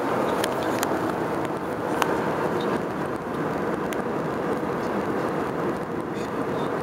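Steady jet engine and airflow noise inside the cabin of an Airbus A321-200, heard from a window seat, with a few faint clicks.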